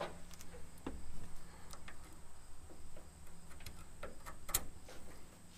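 Brake cable pliers working on an emergency brake cable clamp: a few scattered light metallic clicks, the loudest about four and a half seconds in.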